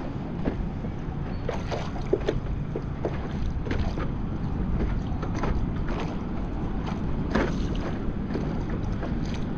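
Choppy water lapping and splashing against a stand-up paddleboard, with irregular small slaps and wind buffeting the microphone.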